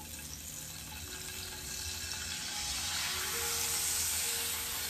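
Rinsed capers sizzling in a skillet of hot browned butter, olive oil and garlic, the sizzle swelling louder a few seconds in as the pan is swirled.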